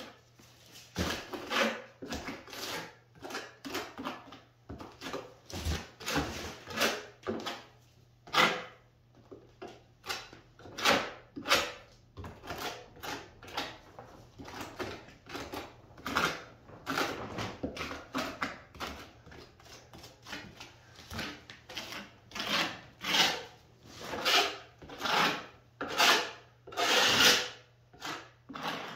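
Small steel hand trowel scraping and pressing wet base-coat plaster into wood lath in repeated rasping strokes, about one or two a second and uneven in loudness. This is the scratch coat being worked in tight so that it keys behind the lath.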